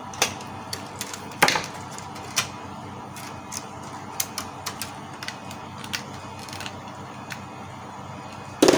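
Irregular plastic clicks, taps and knocks from hands working parts and cables inside an opened Canon MP287 inkjet printer. The louder knocks come about a second and a half in and again just before the end, with small ticks between.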